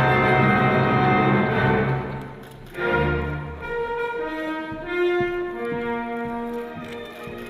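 Orchestral classical music with strings and brass: a loud, full sustained passage breaks off about two seconds in, then a strong low chord enters and gives way to quieter held notes.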